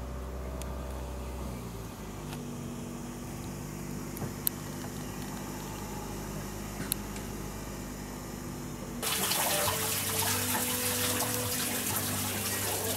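Soft background music of held chords that change every second or two. About nine seconds in, a steady rushing hiss comes up beneath it.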